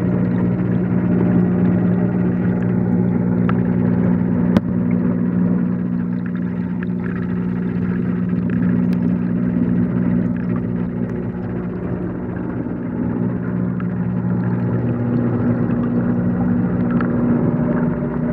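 Steady hum of aquarium equipment heard through the water by a microphone submerged in the tank, over a low wash of water noise, with one sharp click about four and a half seconds in.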